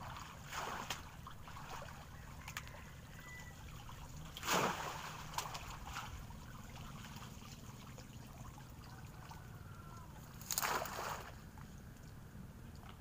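Water splashing three times, a short splash each time, the second the loudest, over a steady low hum.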